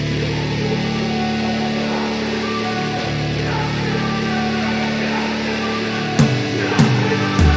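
Background music: sustained chords hold steady, then a beat of sharp drum hits comes in about six seconds in.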